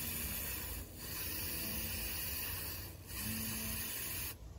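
Aerosol spray-paint can hissing in three long bursts, with brief breaks between them about a second in and about three seconds in.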